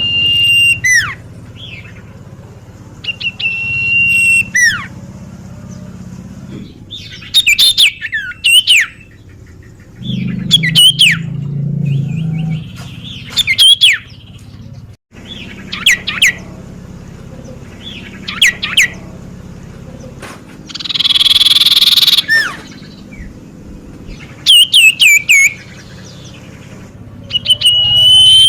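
Common iora (cipoh) calling repeatedly, about once every two to three seconds: clear whistled phrases, some a long held note that slides down at the end, with one harsher rasping call a little past two-thirds of the way through.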